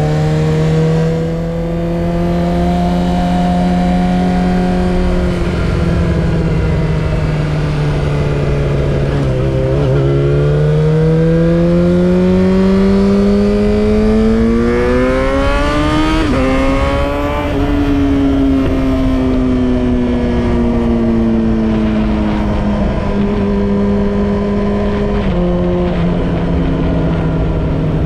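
Yamaha XJ6's 600 cc inline-four running through a Dominator GP full exhaust with dB killer while being ridden. The engine holds a steady note, then eases off. It then climbs steadily in pitch for several seconds until a short drop in pitch, typical of a quickshifted upshift. After that the pitch falls away gradually as the bike slows, with one more small step near the end.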